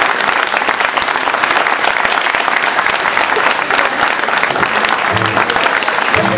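Audience applauding, with steady dense clapping; about five seconds in, music starts under the applause.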